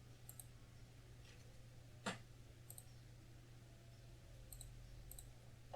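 Computer mouse clicking a few times against a near-silent room tone with a steady low hum; one sharper click about two seconds in, the rest faint.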